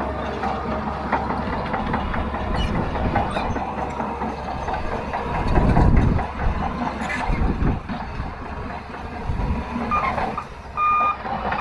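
Crawler bulldozer's diesel engine running under load, with its steel tracks clanking and rattling; the engine note swells heavier about halfway through. A short high beep sounds near the end.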